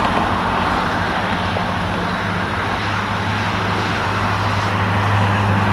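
Road traffic passing: a steady low engine drone over tyre and road noise, growing a little louder in the second half.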